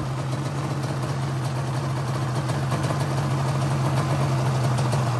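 A motor engine idling steadily with an even hum, growing slightly louder over the few seconds.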